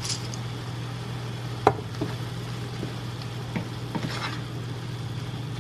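Ground turkey sizzling in a nonstick sauté pan as it is stirred with a wooden spoon, with a few light knocks of the spoon against the pan, the sharpest about a second and a half in. A steady low hum runs underneath.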